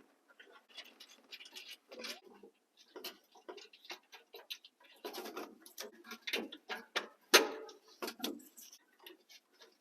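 Irregular clicks and knocks of hand tools and metal hardware being handled as a battery cable is fastened, with a few louder knocks between about five and eight seconds in.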